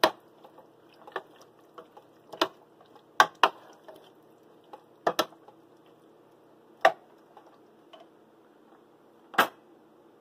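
A cooking spoon knocking against the side of a pot while stirring chickpeas into a thick sauce: about ten sharp clinks at uneven intervals, a second or two apart.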